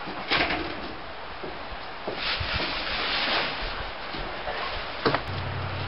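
Footsteps and rustling on wooden porch boards, with a short knock about five seconds in.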